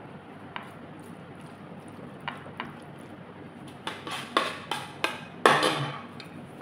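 Metal fish scaler scraping and shredding set pandan gelatin (gulaman) in a glass baking dish: a few faint clicks, then from about four seconds in a quick run of louder scraping strokes.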